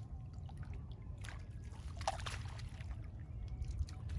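Water splashing and trickling in a few short flurries, about a second in and again around two seconds in, over a steady low rumble.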